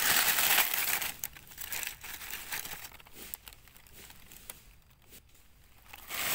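Dry fallen leaves crackling and rustling as a hand digs and pushes through leaf litter. The rustling is loudest at the start, dies down in the middle and picks up again near the end.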